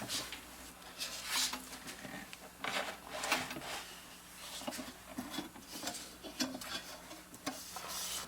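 Irregular rubbing, shuffling and light knocks of hands handling a wooden wall clock's case and movement parts, with several louder scrapes.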